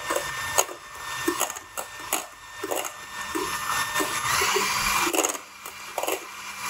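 Electric hand mixer running on high speed, its beaters whipping egg whites in a stainless steel bowl, with irregular clicks throughout. The whites are still soft and being beaten toward stiff peaks.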